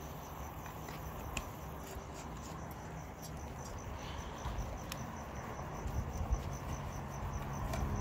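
Crickets chirping in an even, rapid pulse of about five chirps a second, over a steady hiss, with a few faint clicks.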